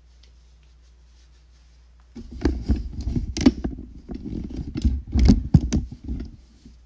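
Close handling noise: a few seconds of rustling, scraping and knocking on or near the microphone, starting about two seconds in and dying away near the end.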